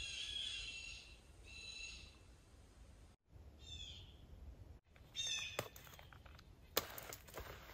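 Wild songbird calls: a few high, falling chirps repeated several times over a quiet woodland background. Near the end come rustling and clicks of gear and straps being handled, with one sharp knock.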